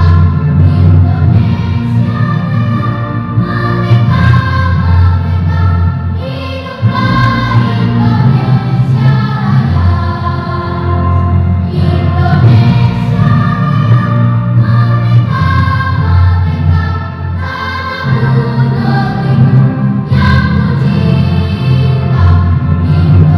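Children's school choir singing together, a sustained sung melody with brief breaths between phrases about 7 and 18 seconds in.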